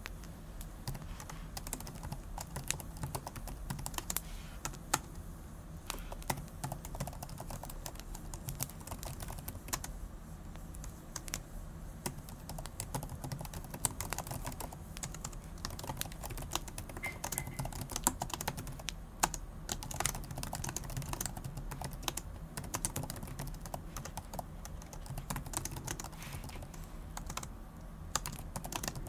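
Typing on a laptop keyboard: a continuous stream of quick key clicks with short pauses, a sound effect.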